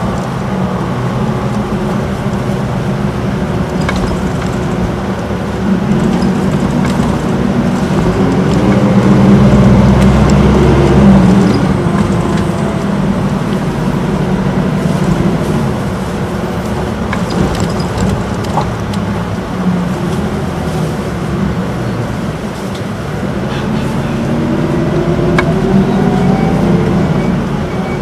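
Interior running sound of an Isuzu Erga city bus (2DG-LV290N2), a four-cylinder turbodiesel with a torque-converter automatic, heard from the passenger cabin. The engine note rises in pitch and grows louder to a peak about ten seconds in, eases off, then climbs again near the end.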